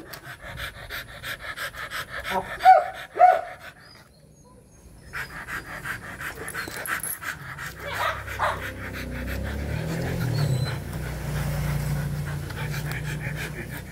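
Rottweilers panting in quick, even breaths, with a few short whines in the first few seconds. The panting breaks off briefly about four seconds in, and a low steady hum comes in about eight seconds in.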